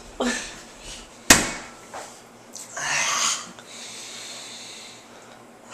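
A man breathing hard and gagging on a mouthful of pungent Limburger cheese, with a long breathy exhale about three seconds in. A single sharp knock comes about a second in.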